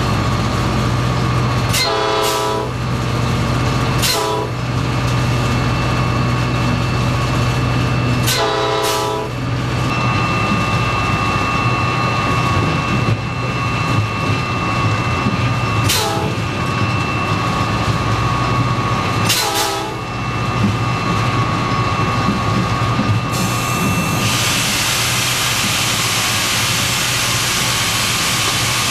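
Diesel locomotive cab under way: the engine's steady low drone with a steady tone over it and several brief sounds a few seconds apart. In the last few seconds a loud rushing noise comes in as freight cars pass close alongside.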